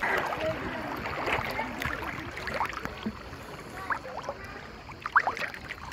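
Sea water splashing and sloshing close to the microphone, in irregular short splashes, with one sharper splash about five seconds in.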